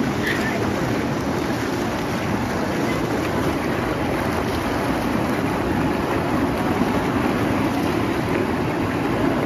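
Spa pool's massage waterfall jet pouring heavily onto a person's shoulders and back and splashing into the pool water: a steady, unbroken rush.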